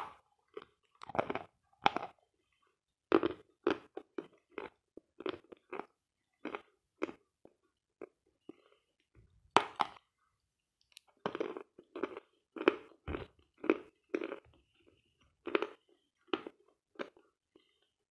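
Dry, dense 'Sloyka' eating chalk being bitten and chewed: a sharp bite at the start, then a run of irregular crunching chewing strokes with short pauses, with another loud crunch about halfway through.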